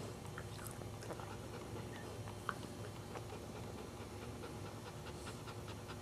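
Mother Cairn terrier panting during whelping, with small ticks and a short sharp click about two and a half seconds in.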